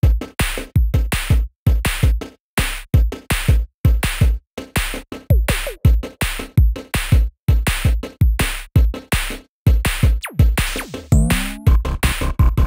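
Electronic music with a punchy drum-machine beat and heavy bass kicks, with a rising synth glide near the end.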